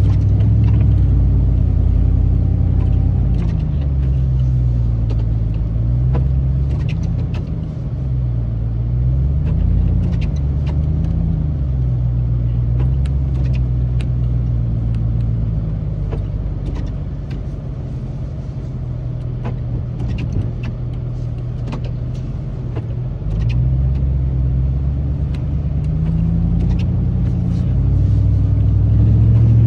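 2008 Chevrolet Silverado 2500HD's 6.0-litre gas V8 heard from inside the cab while plowing snow, its pitch rising and falling several times in the first ten seconds, steadier through the middle and rising again near the end. Scattered light ticks sound over the engine.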